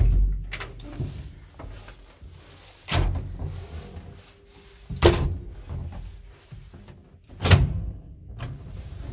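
Doors of an old 1960s ZUD passenger lift being worked: a string of clunks and bangs, the sharpest about five and seven and a half seconds in.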